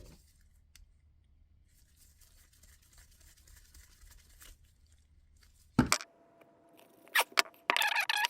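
Screws being driven into a vacuum wiper motor with a screwdriver: a knock about six seconds in, then short bursts of squeaky scraping as the screws turn.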